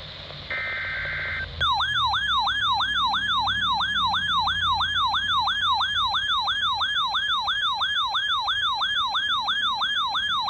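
A roughly one-second burst of the screechy digital SAME header tone, then a weather radio's alert siren starts about a second and a half in: a fast warble sweeping up and down about three times a second. It is set off by a Required Weekly Test signal on NOAA Weather Radio.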